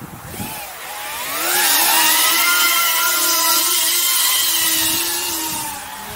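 Electric ducted fans of an FV-31 Cypher VTOL RC jet spooling up for take-off: a whine of several tones at once rises in pitch over about a second and a half, then holds loud and steady as it flies, and falls off somewhat near the end.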